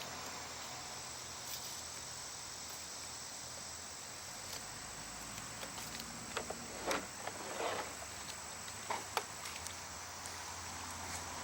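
Steady high-pitched insect trill over a quiet outdoor background, with a few light clicks and knocks in the second half.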